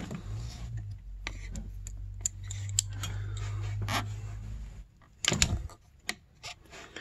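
Small metallic clicks and rattles of a power valve cable end and steel digital calipers being handled, over a low steady hum that stops about four and a half seconds in; a louder clatter follows a little after five seconds.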